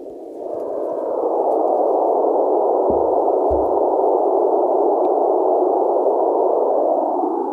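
A small test loudspeaker playing steady rushing noise, without highs or deep bass. It gets much louder about a second in as the wooden box covering it is lifted off, then runs steady and uncovered, and is muffled again near the end as another box is lowered over it. A box is set down on the table with two dull thumps midway.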